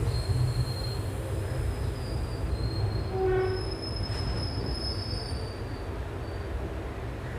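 Passenger train rolling, heard from on board: a steady low rumble with thin, high-pitched wheel squeals coming and going, and a brief pitched tone about three seconds in.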